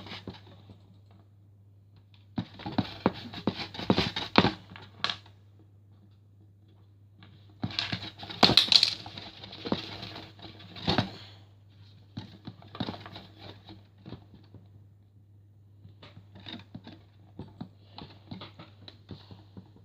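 Clusters of sharp taps, scrapes and rustles as Play-Doh and plastic toy tools are handled on a desk, in four bouts separated by short pauses, over a steady low hum.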